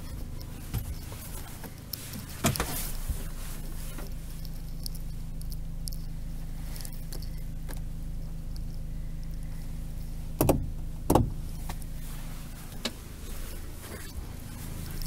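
Opel Vivaro's 1.9 CDTI four-cylinder turbodiesel running steadily, its pitch not changing. A few sharp clicks or knocks sound over it: one about two and a half seconds in, and two close together about ten seconds in.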